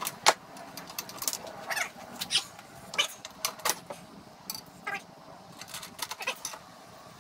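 Scattered clicks and light metal knocks from parts of a tow-behind broadcast spreader being handled and fitted together, the sharpest knock about a third of a second in.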